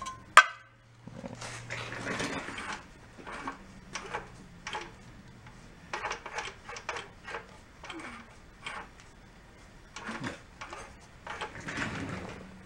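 Metal hand tools clinking and scraping on engine parts: a string of small clicks and knocks with a few short scrapes, the loudest a sharp metallic click just after the start.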